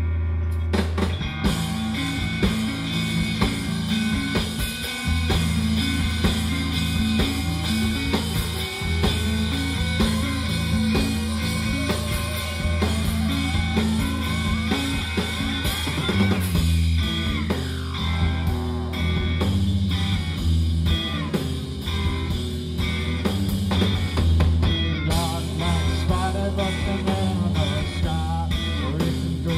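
Rock band playing live through a PA: electric guitar, bass and drum kit with a steady beat. About sixteen seconds in, a sliding tone falls in pitch over the music.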